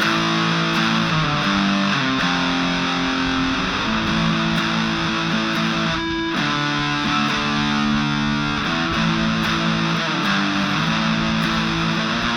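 Epiphone Les Paul 100 electric guitar played through an Aroma TG-08 mini amplifier on its metal setting: heavily distorted chords, each held and changed every second or two, with a brief break about six seconds in.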